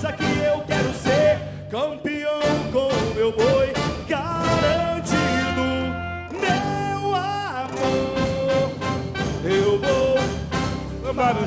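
Live band playing a boi-bumbá toada: quick, even drum beats under a melody line of held and gliding notes.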